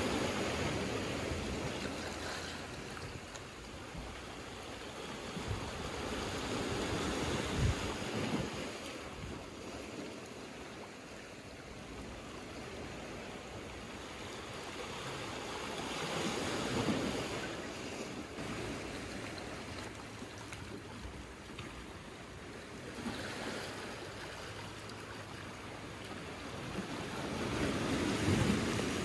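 Small sea waves washing in over low rocks and a pebble shore, the surf swelling and fading every several seconds.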